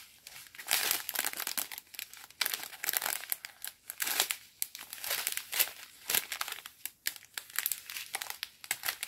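Small clear plastic bags of diamond-painting drills crinkling as they are handled and turned over one after another, in irregular bursts.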